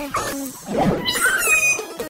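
Comedy sound effects: a short animal-like cry, then a higher, wavering call that glides up and down in the second half, over the tail end of music.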